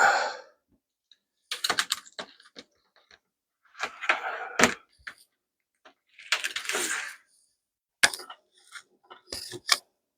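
Small objects being handled on a workbench: clicks, knocks and rustling in several short bursts with gaps between them.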